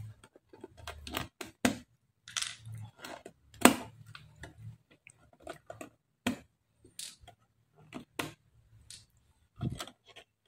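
Irregular clicks, taps and scrapes of plastic control knobs being twisted and pulled by hand off the potentiometer shafts of a Taffware V8S sound card, with a louder knock about three and a half seconds in.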